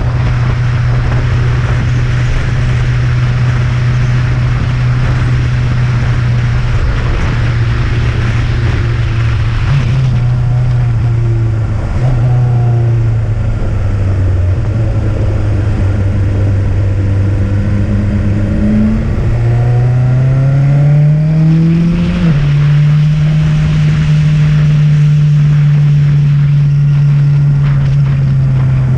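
Motorcycle engine running under load on a climb, with wind rushing over the microphone. About ten seconds in it eases off and drops in pitch. Around twenty seconds it revs up, its pitch falls suddenly as it shifts up a gear, and it then runs steadily.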